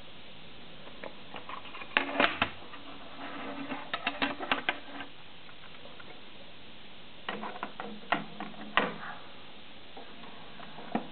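Clicks and rattles of a plastic audio cassette and its case being handled and opened, in short clusters: a few sharp clicks about two seconds in, a run of rattling clicks around four seconds, and more clicks around eight seconds and near the end.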